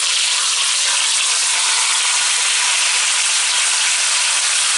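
Marinated beef shoulder roast searing in hot clarified butter in a roasting pan: steady sizzling and spitting of fat.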